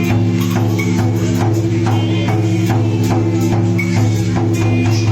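Vietnamese funeral drum music: percussion struck in an even beat, about two to three strokes a second, over a steady held low tone.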